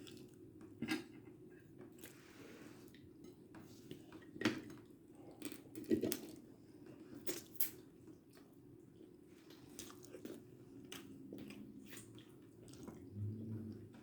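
Someone eating close to the microphone: irregular chewing and biting with scattered crunches and small clicks.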